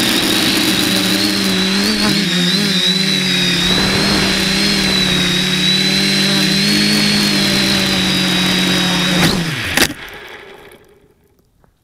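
Spider 450 quadcopter's electric motors and propellers running with a steady drone and a high whine, heard from the onboard camera. About nine seconds in the pitch drops as the motors spin down on landing in the snow, with a sharp knock just before they stop.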